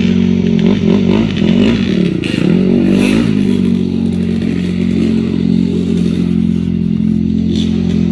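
Boat engine running loudly and steadily; about a second in its pitch wavers up and down for a couple of seconds, then it settles to an even drone.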